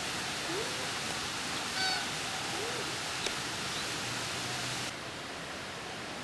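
Steady rushing background hiss with a few short bird calls, one of them a brief ringing note about two seconds in, and a single sharp click a little after three seconds. The hiss drops abruptly about five seconds in.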